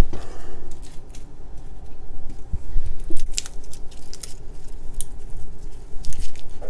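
Garlic cloves being peeled by gloved fingers: scattered small crackles and clicks from the papery skins, with the odd light tap on a wooden cutting board.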